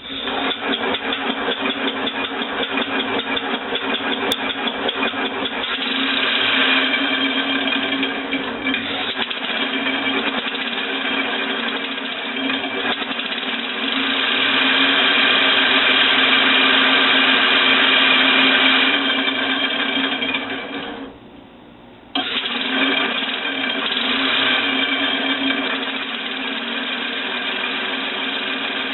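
Homemade four-cylinder compressed-air engine running on shop air with a rapid, even mechanical clatter. It grows louder twice, dies away for about a second about two-thirds of the way through, then starts running again.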